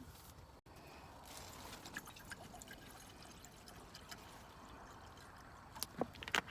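Liquid being poured, a faint trickle, with a few sharp clicks near the end.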